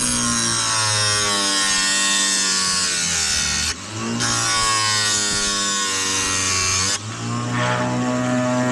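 Electric chainsaw chain sharpener grinding chain teeth: two passes of harsh grinding, one breaking off about four seconds in and the other about seven seconds in. The motor hums steadily underneath, and its pitch dips and recovers during each pass.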